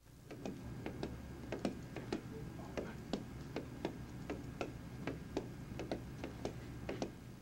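A run of irregular sharp taps, about two or three a second, over a steady low hum.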